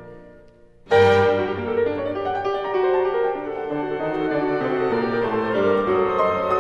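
Background classical music: one passage fades away, and about a second in a piano piece begins suddenly and plays on.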